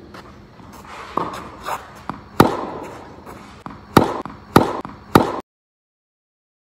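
Tennis balls struck by a racket on forehand swings, with ball bounces: four sharp pops, the last three close together, and a few softer knocks before them, each echoing briefly in a covered court.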